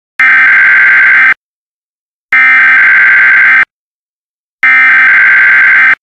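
Emergency Alert System SAME header: three loud, identical bursts of warbling digital data tones, each a little over a second long with about a second's pause between them, opening an Emergency Action Notification.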